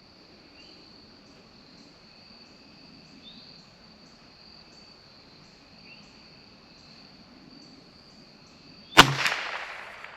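A single .22 LR shot from a CZ 457 bolt-action rifle with SK Rifle Match ammunition, a sharp crack about nine seconds in with a tail that dies away over about a second. Before it there is a long quiet stretch with only a faint steady high-pitched tone.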